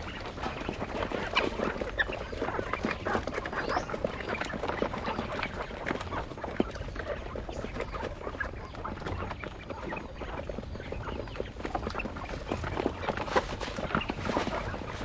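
A flock of quail calling: many short chirps and chatter overlapping in a dense, steady stream.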